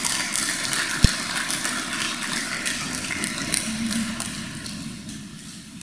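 An audience clapping, with the applause thinning out near the end. There is a single thump about a second in.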